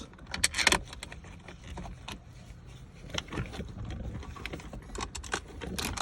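Scattered metallic clicks and clinks of a hand tool and 10 mm bolts as the shifter unit's mounting bolts are put back in, with a few louder knocks near the start and near the end.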